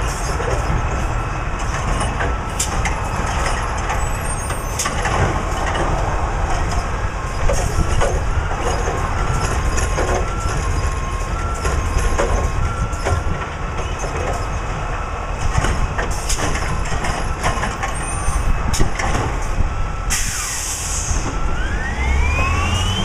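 Recycling garbage truck's diesel engine running, with repeated knocks and clatter. Near the end comes a short air-brake hiss, then the engine revs up in a rising whine.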